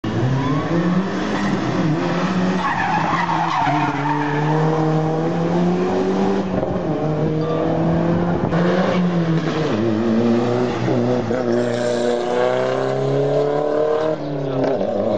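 Race car engines accelerating hard uphill, the pitch climbing through each gear and dropping back at the shifts, over and over. The sound breaks off abruptly a couple of times as one car gives way to another.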